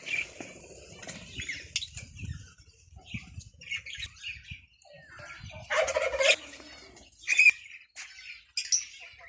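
A mix of kept ornamental birds calling: many short chirps, with a louder squawk about six seconds in and another about a second later.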